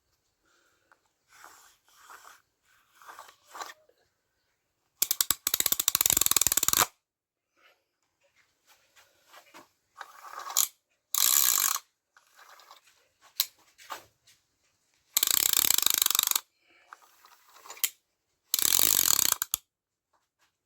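A ratchet mechanism clicking rapidly in five loud bursts of one to two seconds each, with quieter handling clicks and knocks between the bursts.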